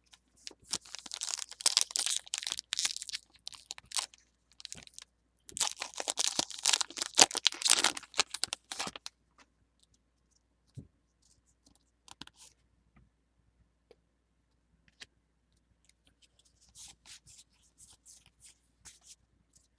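Foil Pokémon booster pack wrapper being crinkled and torn open in two loud bouts of ripping, followed by scattered small ticks and fainter crinkling near the end.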